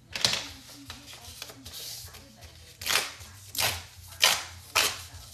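Paper raffle tickets being torn apart along their perforations: one short rip just after the start, then four more in quick succession, about half a second apart, in the second half.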